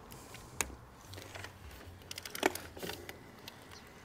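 A few faint, scattered clicks and light rustling over a low steady hum: small handling noises near the microphone.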